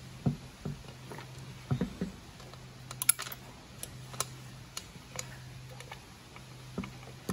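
Irregular small clicks, taps and knocks as hands handle a chainsaw crankcase and fit a wire and small plastic parts onto it, with a quick cluster of clicks about three seconds in. A faint steady low hum runs underneath.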